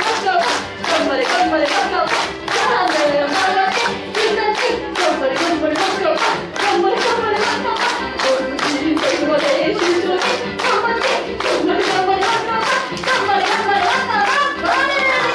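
Audience clapping along in a steady rhythm, about three claps a second, over music with singing.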